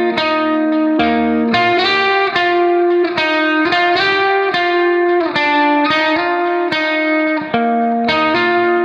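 Instrumental background music: a melody of clear, sustained notes, a new note every fraction of a second.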